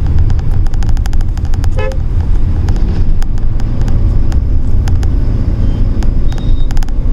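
Road noise from a moving vehicle: a steady, loud low rumble with irregular crackling clicks through it.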